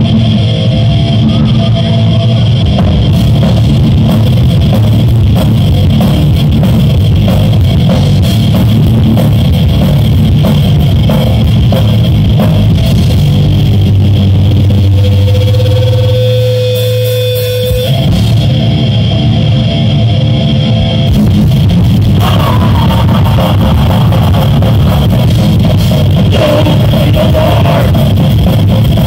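Loud live rock band playing: electric guitar, bass guitar and drum kit through stage amplification. About halfway through the band briefly drops to a single held note, then comes back in full.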